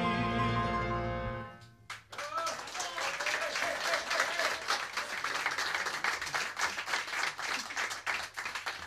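A live jazz band holds its final chord, which dies away about a second and a half in; then an audience applauds, with a voice calling out shortly after the clapping begins.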